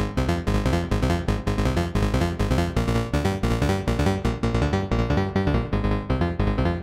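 Dwarf Star DIY modular synthesizer playing a fast, rhythmic melody of short notes, driven by a MIDI-to-CV converter. About five seconds in, the sound grows darker and less bright while a knob on the panel is turned.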